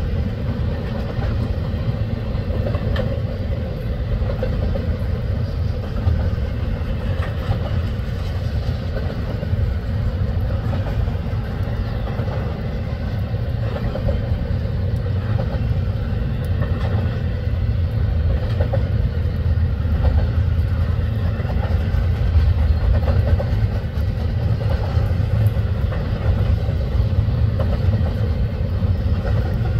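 Double-stack intermodal well cars loaded with shipping containers rolling past on the rails, a steady low rumble of wheels on track with a few faint clicks.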